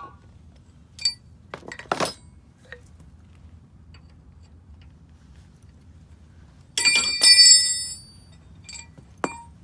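Metal hand tools clinking against each other, with a louder ringing clatter of metal on metal about seven seconds in.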